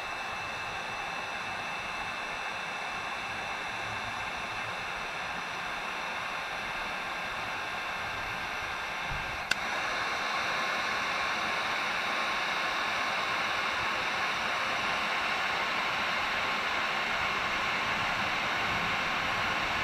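Electric heat gun running steadily, its fan blowing hot air onto a coated panel: an even rush of air with a faint whine. About halfway through there is a click, after which it runs a little louder.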